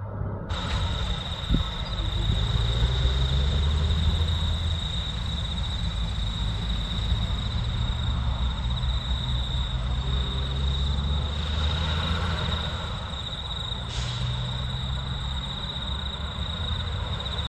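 Heavy diesel truck engine rumbling steadily as a prime mover hauling a shipping container works around a roundabout, with a steady thin high-pitched tone running over it.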